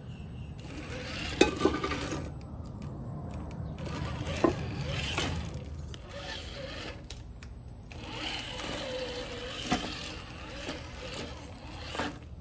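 Traxxas TRX-4 Sport RC rock crawler driving over roof tiles: its electric motor and geared drivetrain run in three spurts, with a few sharp knocks as the tyres and chassis bump on the tiles.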